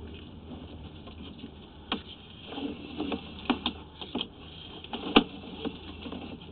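Sewer inspection camera's push cable being drawn back and fed onto its reel, giving irregular sharp clicks and knocks, the loudest about five seconds in.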